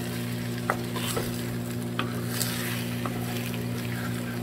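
Scrambled eggs and sliced hot dogs frying in a clay cazuela, a steady sizzle with a few sharp little clicks and pops scattered through it. A steady low hum runs underneath.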